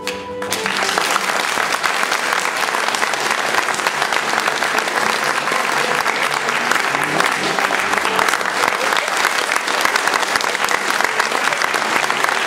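Applause from many people clapping together, dense and steady, starting as a sung closing note breaks off about half a second in.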